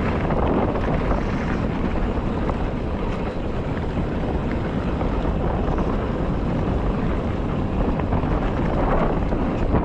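Wind buffeting the microphone and the rumble and rattle of a mountain bike riding down a dirt trail, a steady loud noise with many small irregular clicks from the ground.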